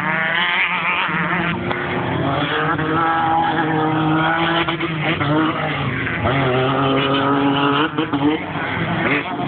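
Off-road race car engine running hard at high revs. The pitch climbs and levels off, drops about halfway through, then climbs again.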